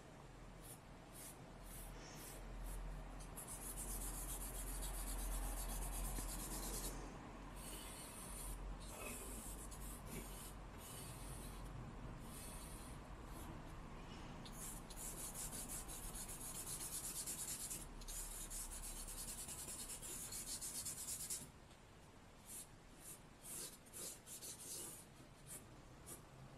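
Charcoal stick scratching across drawing paper in long runs of rapid shading strokes. From about three-quarters through it becomes quieter and broken into separate strokes.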